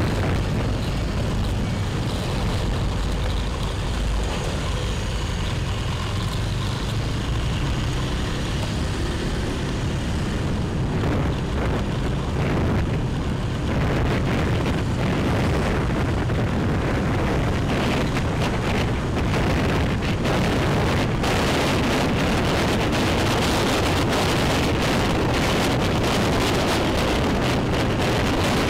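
Motorbike riding through city traffic: a steady low engine and road rumble with wind buffeting the microphone, the wind noise growing stronger about halfway through as the bike picks up speed on an open road.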